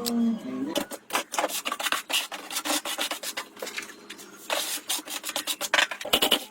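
Hand abrasive work on the rusty metal of an old water pump: rough rasping strokes in quick, irregular runs. A humming tone dies away in the first half second.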